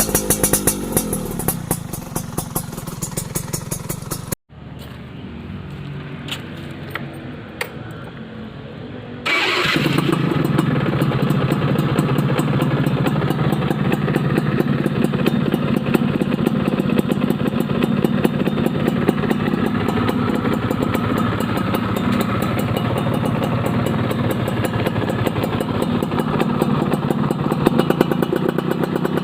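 Yamaha F1ZR two-stroke engine running steadily through an aftermarket under-side chrome expansion-chamber exhaust with a carbon silencer, with rapid exhaust popping. About four seconds in the sound drops suddenly and stays fainter, then about nine seconds in it comes back loud and steady.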